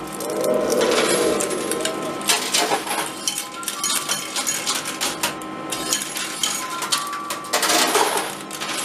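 Coins clinking and clattering in an arcade coin pusher machine, many small metallic clicks, over busy arcade noise with short electronic tones.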